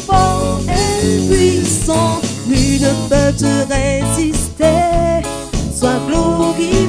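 French-language Christian praise song performed live by a small band: a woman singing the lead over electric guitar, bass guitar and an electronic drum kit.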